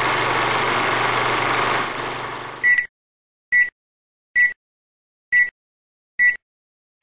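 A steady mechanical whirr with a low hum cuts off about three seconds in. It is followed by a string of short, identical high electronic beeps, about one a second, with dead silence between them.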